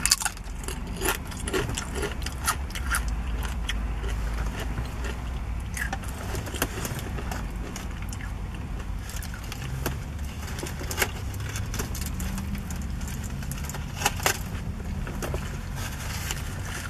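Close-up eating sounds: tortilla chips crunching and a burrito being chewed, with scattered sharp crunches and crackles, over a steady low rumble.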